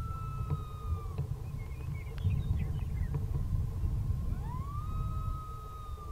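Coyote howls: one long, high held note that sags slightly and drops away about a second in, then, after a pause, a second howl that sweeps up in pitch from about four seconds in and holds. Wind rumble on the microphone underneath.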